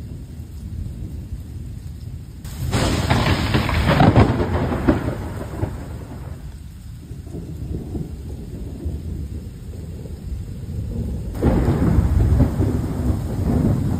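Two loud thunderclaps, the first about two and a half seconds in and the second near the end, each breaking with a crackle and rolling off into rumble, over steady rain.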